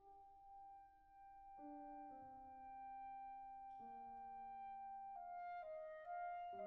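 Clarinet with wind ensemble playing slow, soft sustained chords. A high note is held while the lower chord tones change every second or two, and the sound thickens toward the end.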